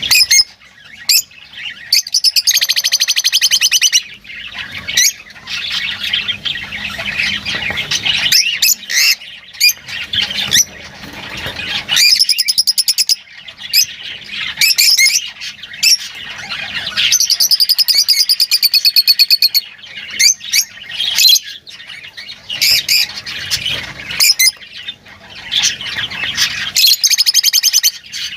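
Lovebirds calling: loud, shrill squawks and chirps coming in quick, overlapping bursts, with several rapid buzzy trills a second or two long.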